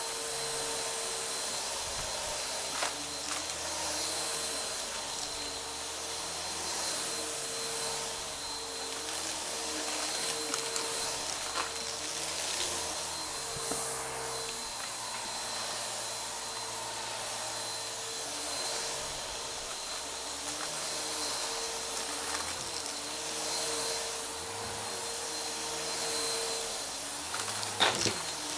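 Vacuum cleaner running steadily while it sucks up a crunchy debris mix, with scattered crackles and clicks as particles hit the brushroll and hose. A sharper crack comes near the end.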